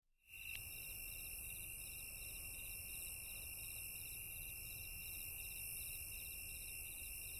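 Faint night-insect chorus: rhythmic chirping repeating a few times a second over a steady high trill and hiss, starting just after the music cuts out.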